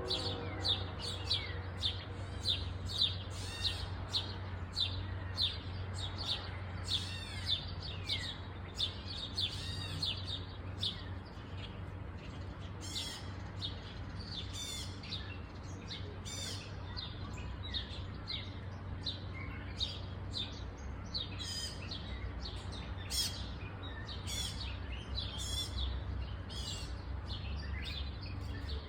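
Small birds chirping and twittering: many short, quick high calls one after another, over a steady low rumble that grows a little near the end.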